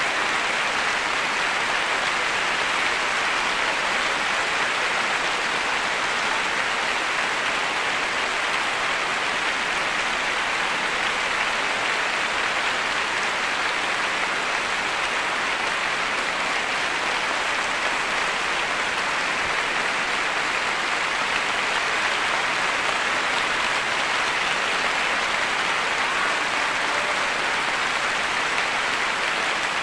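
Large concert audience applauding steadily, a sustained ovation of dense clapping with no break.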